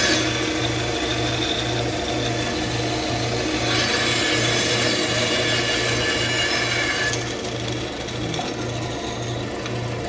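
A tool working wood, louder for a few seconds in the middle, over a low hum that pulses about two and a half times a second.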